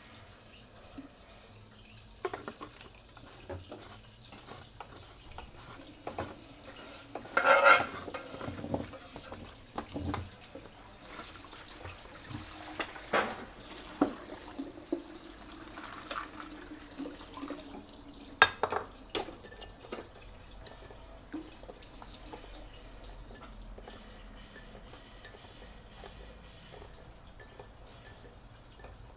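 Home kitchen work: water running from a tap for several seconds while pots, dishes and utensils clink and knock, with the sharpest knocks about a quarter of the way in and again past halfway.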